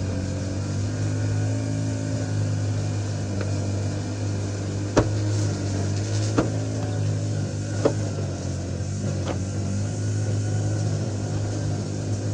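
An engine running steadily with a low hum, and four sharp knocks about a second and a half apart in the middle.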